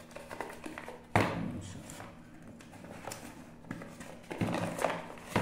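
Cardboard product box being handled and tipped out, with one sharp knock about a second in, then light rustling and clicks of card and paper.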